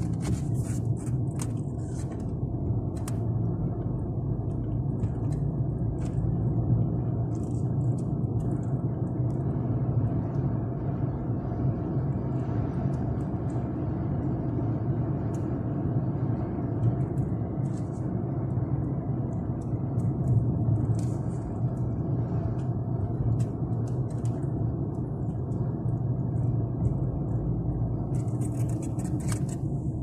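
Steady low engine and road rumble heard inside a moving car's cabin, with scattered light clicks and rattles.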